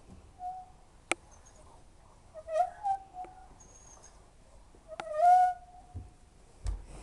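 Hoover W 420 washing machine squealing as the drum turns: short squeaks that bend in pitch, coming about every two and a half seconds, with a few sharp clicks. The squeal is the sign of its broken drum bearings.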